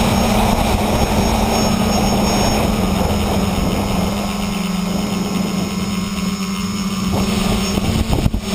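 Tricopter's electric motors and propellers buzzing steadily at one pitch, heard from the camera mounted on the craft, with wind rushing over the microphone, stronger in the first few seconds. The sound breaks briefly near the end.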